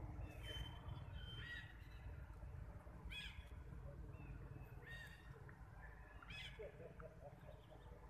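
Short high-pitched animal calls, each a quick rising-and-falling chirp, repeated four or five times about every one and a half to two seconds over a low steady rumble.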